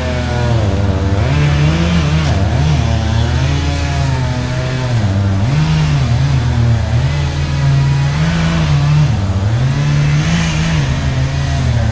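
An engine revving up and down over and over, its pitch rising and falling every second or two.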